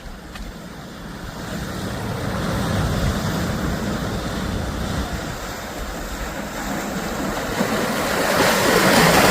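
Sea waves washing in, with a wave building and swelling loudest near the end. Wind buffets the microphone.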